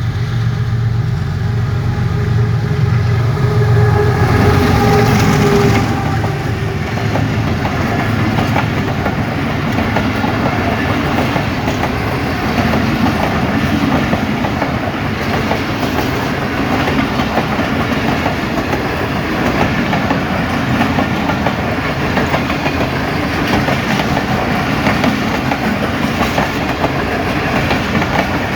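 Diesel-electric locomotive passing with a steady engine drone for the first few seconds. Its passenger coaches then roll by with a continuous clickety-clack of wheels over the rail joints.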